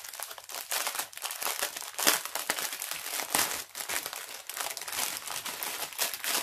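Clear plastic wrapping crinkling as hands pull it open around a bundle of small plastic bags of diamond-painting drills, in dense, irregular crackles.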